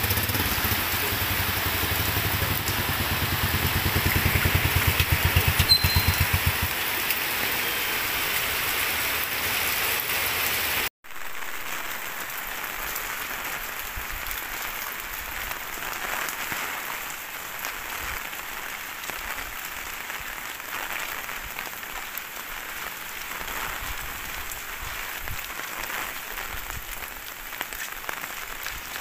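Heavy rain falling steadily on a wet concrete street. For the first several seconds a motorcycle engine runs under the rain, growing louder and then stopping; after a brief cut about a third of the way in, only the rain remains, a little softer.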